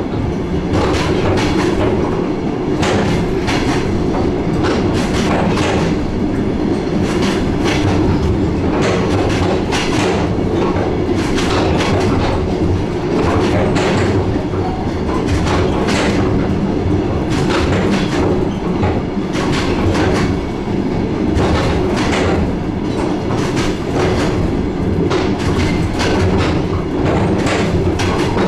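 DR1A diesel multiple unit under way: a steady rumble of the running train, with the wheels clicking over rail joints many times throughout.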